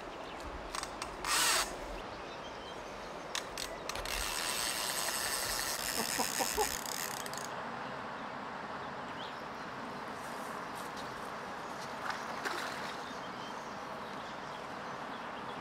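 Fly reel's click-and-pawl drag rattling rapidly for about three seconds while a hooked Atlantic salmon is played on the line, over the steady rush of the river. A brief burst of noise comes about a second and a half in.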